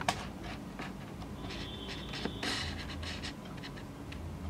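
Video camera being handled and repositioned: soft scratching and rubbing with a few faint clicks, and a short, thin high whine near the middle.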